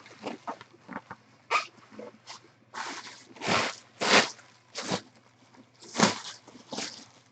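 Bubble wrap and plastic packaging being handled and pulled apart, crinkling and rustling in irregular bursts, with a few louder crackles in the middle.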